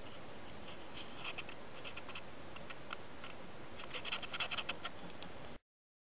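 Steady hiss with scattered crackles and scratches, typical of the worn soundtrack of old archival film, with a denser patch of crackling about four seconds in; it cuts off abruptly shortly before the end.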